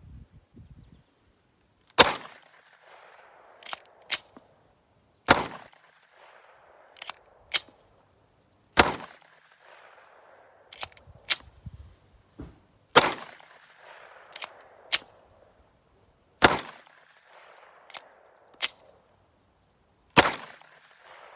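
9mm semi-automatic handgun fitted with a 5.5-inch AR-15 muzzle brake, firing six slow, evenly spaced shots about three and a half seconds apart, each followed by a trailing echo. Fainter sharp cracks fall between the shots.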